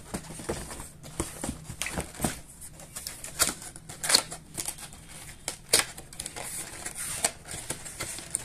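Cardboard boxes being handled: a long air-rifle box is slid out, set down on other boxes and fingered at its flap, giving scattered scrapes, taps and clicks of cardboard.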